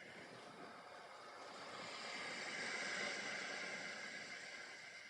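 Faint rushing noise that swells for a couple of seconds, peaking about three seconds in, then fades away.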